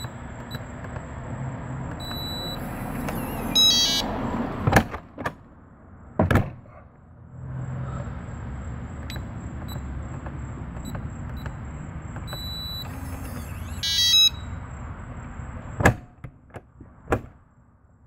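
RV Lock keyless entry door handle being tested with a new code: keypad buttons pressed with small beeps, then the lock answering with a louder electronic beep and working with sharp clicks. This happens twice, about ten seconds apart.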